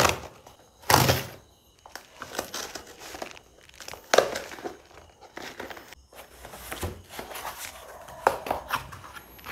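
Packing tape on a cardboard shipping box being slit with a small metal pin and torn, then the cardboard flaps pulled open: scattered crinkling, tearing and scraping, with two sharper rips near the start.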